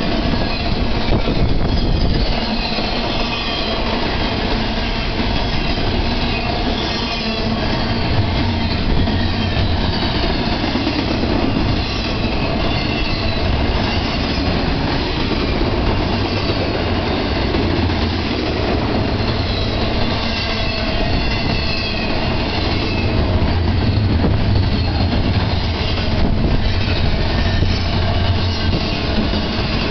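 Double-stack intermodal freight train's container well cars rolling past: a steady rumble and rattle of steel wheels on rail, with a thin, wavering high squeal from the wheels on top.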